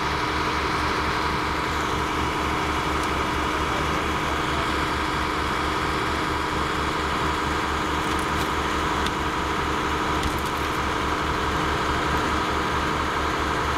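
An engine running steadily at an even pitch, with a constant hum and a fast, even pulsing underneath.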